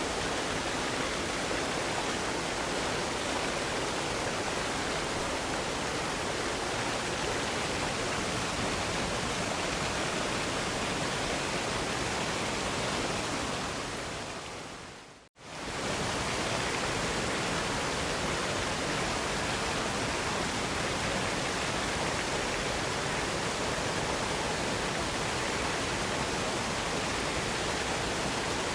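Waterfall rushing in a steady, even roar of water. About halfway through it fades out to silence and quickly fades back in.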